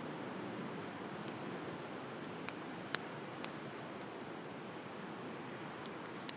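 Wood fire crackling, with a few sharp pops scattered through, over a steady wash of sea surf.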